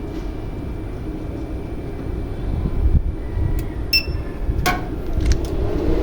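Steady low hum and rumble of running equipment, with several sharp clicks in the second half, two of them ringing briefly.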